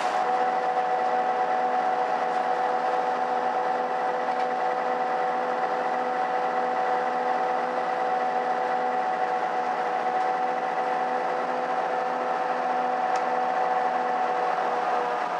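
Mercedes-Benz O530 Citaro city bus driving at a steady speed, heard from inside the passenger cabin. The engine and drivetrain make a steady drone with two held tones and a faint regular pulsing beneath.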